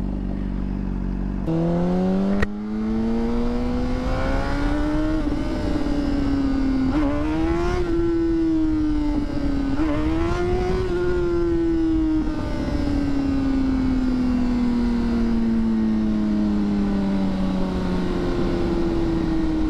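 2009 Honda CBR600RR's inline-four engine accelerating hard: its pitch climbs, dips briefly twice as it shifts up, then falls steadily as the bike rolls off the throttle and slows. Wind rush on the helmet-mounted mic runs under it.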